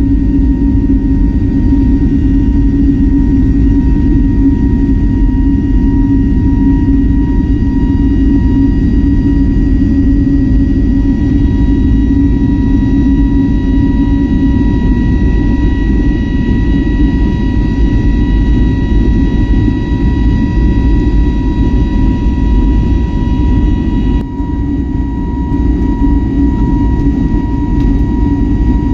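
Airbus A320neo cabin noise: jet engines and airflow making a steady loud rumble with a constant high whine on top. About 24 seconds in, the upper hiss eases slightly.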